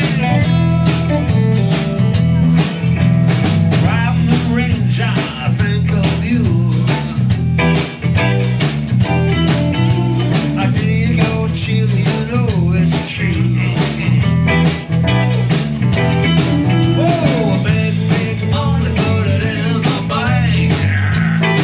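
Live bar band playing a blues-rock number: electric guitars, electric bass and drums at a steady, loud level, with bent guitar notes.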